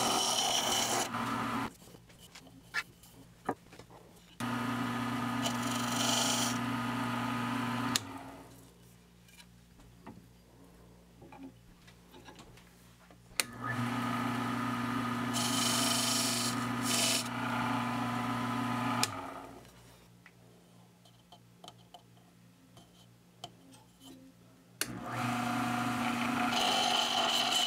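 Wood lathe running, its motor humming steadily, while a skew chisel cuts a spinning wooden handle with a dense scraping noise. The cutting comes in four stretches, with quieter gaps between them that hold only scattered light clicks.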